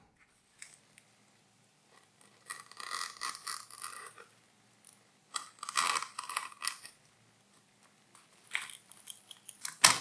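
Fabric labels being cut from a bag, in three short bursts: two of about a second and a half and a shorter one near the end.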